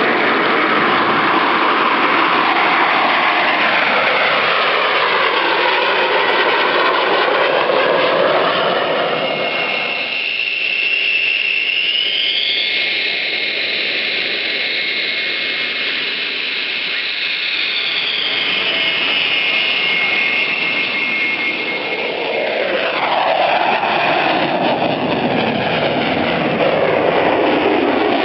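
Jet aircraft noise throughout. A roar with slowly sweeping pitch from a passing jet gives way abruptly, about ten seconds in, to the high steady whine of an F-16's turbofan taxiing close by. A sweeping roar returns near the end as a jet flies overhead.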